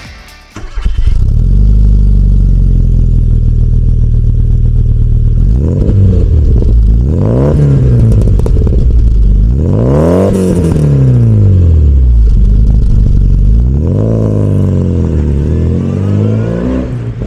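1997 Rover Mini's 1.3-litre MPI four-cylinder engine through a sport exhaust, coming in about half a second in and idling steadily. From about six seconds in it is revved three times, each a rising and falling blip, the last one longer, then it drops back to idle.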